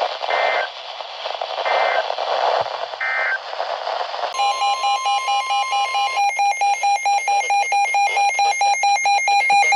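Emergency Alert System data header heard on a weather radio broadcast: three short two-tone warbling bursts over radio hiss. About four seconds in, a loud alert tone begins: a steady tone joined by a beeping tone that pulses about four times a second. It signals the start of a new severe-weather warning.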